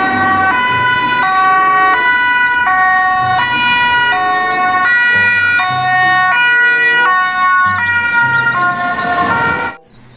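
Two-tone siren of a Volkswagen Red Cross ambulance, alternating between a high and a low note about every 0.7 seconds in the European hi-lo pattern. It cuts off abruptly near the end.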